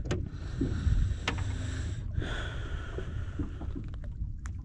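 Steady wind rumble on the microphone over water noise around a small boat, with a couple of faint clicks as a hook is worked out of a small fish's mouth.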